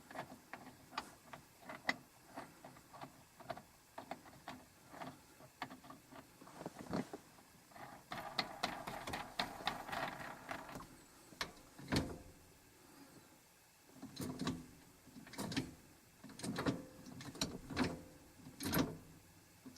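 Short-throw shifter on a T56 six-speed manual gearbox being shifted through the gears by hand: an irregular string of clicks and clunks as the lever moves through the gates, with a louder knock about twelve seconds in and several more near the end.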